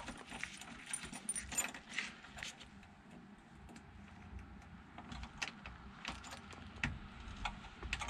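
Keys on a ring jingling softly, with small irregular metal clicks, as the key in a 1966 Ford Mustang's ignition lock cylinder is worked and a paper clip is pressed into the cylinder's release hole to free it.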